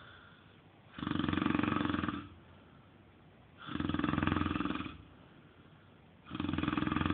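A man snoring in a steady rhythm: three snores about two and a half seconds apart, each lasting a little over a second, with quieter breathing between them; the third begins near the end.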